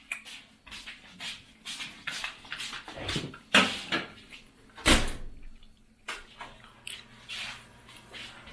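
Irregular clicks and knocks of spoon and dishes being handled, with two louder knocks about three and a half and five seconds in.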